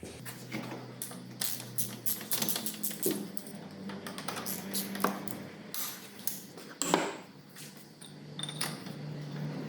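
Metal hand tools clinking and knocking, an irregular string of sharp clicks and taps, over a faint steady hum.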